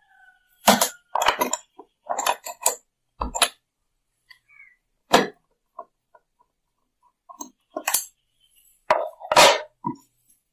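Irregular metallic clinks and knocks of a spanner and loose parts on a sewing machine's underside being taken apart, with a short cluster about nine seconds in.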